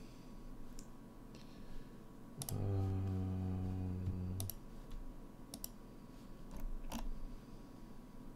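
Computer mouse clicking, about half a dozen sharp single clicks spread out, with a low steady hum lasting about two seconds in the middle.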